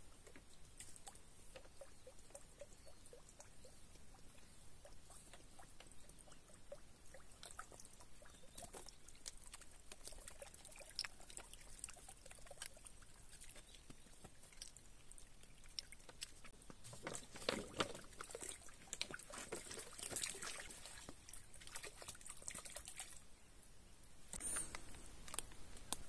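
Water pouring and trickling from plastic bottles laid on their sides into a small dirt pool, faint, with a few louder knocks and rustles about two-thirds of the way through and again near the end.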